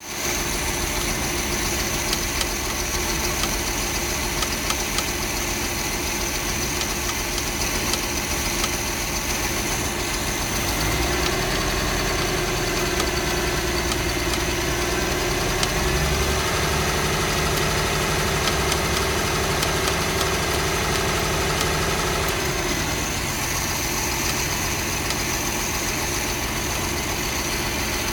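MerCruiser marine engine running with a knocking noise. It idles, is brought up to a higher steady speed about eleven seconds in, and settles back to idle about ten seconds later.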